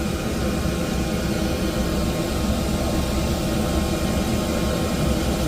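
Steady low hum of running machinery, with several faint steady tones above it.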